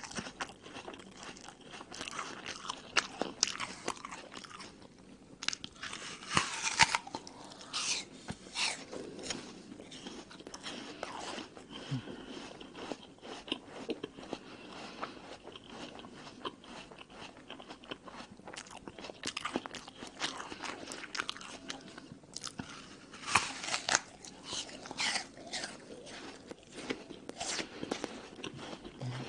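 Crunching bites into a crisp red apple followed by chewing, with louder crunching bites about six seconds in and again about twenty-three seconds in.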